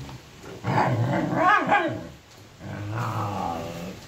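Female dog growling and barking in two outbursts, confronting a monkey: a higher, wavering one, then a lower, longer growl about two and a half seconds in.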